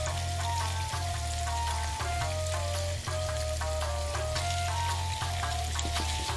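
Tofu pieces sizzling in a hot oiled frying pan as they are torn in by hand, under background music with a steady bass line and a simple stepping melody.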